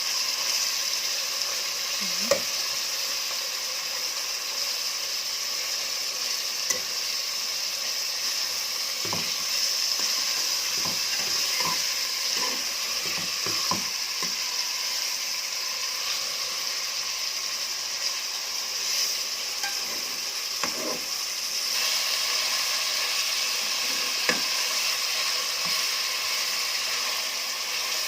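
Meat and onion sizzling steadily in butter in a pot, stirred with a spoon that knocks and scrapes against the pot now and then.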